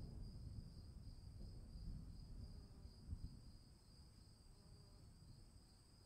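Distant thunder rumbling low and dying away, with crickets chirring steadily underneath.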